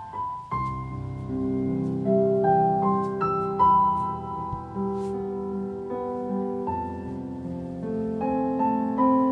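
Recorded piano music played back through a hi-fi system's loudspeakers: a slow melody of single notes over held, ringing chords, the introduction before the singing of a Vietnamese ballad begins.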